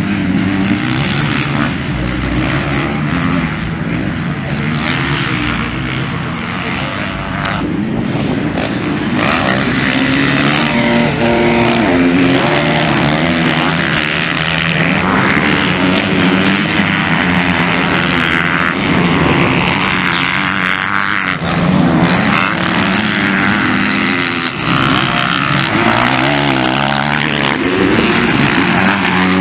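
Motocross bikes racing around a dirt track, engines revving up and down with the throttle as riders pass one after another.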